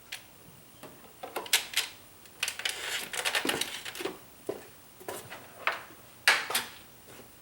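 Sharp clicks and light scraping rattles of the engine oil dipstick being handled, as the oil level is checked partway through the refill. The clicks come one by one, with a busier burst of scraping about three seconds in and two loud clicks near the end.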